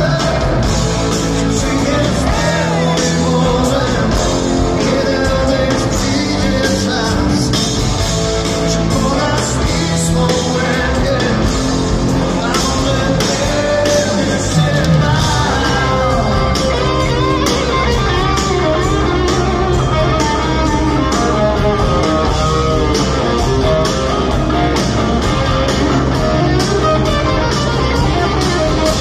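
Live blues-rock band playing: electric guitar and bass over a steady drum beat, with a voice singing.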